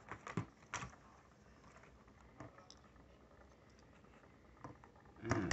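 Light clicks and taps of small diecast toy cars being handled and put down on a turntable, several in the first second, then quiet room tone. A short vocal sound near the end.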